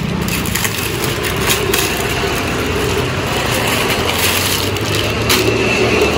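Clear plastic garment packaging crinkling and rustling as a packed dress is handled and opened, with a few sharper crackles, over a steady low hum.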